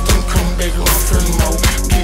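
Chopped and screwed hip hop track: a slowed-down beat with heavy sustained bass, booming kick drums several times, a loud snare hit about a second in, and rapid hi-hat ticks.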